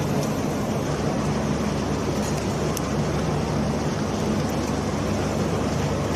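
Steady low machinery hum with an even rushing noise: the background drone of a large industrial hall's equipment.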